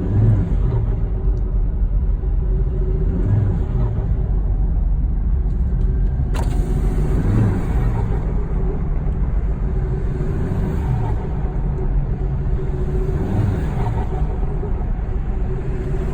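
Mazda BT-50's 3.2-litre five-cylinder turbo diesel running, its revs swelling and dropping every three to four seconds as the throttle is blipped, with turbo flutter as each blip is let off. There is a single sharp click about six seconds in.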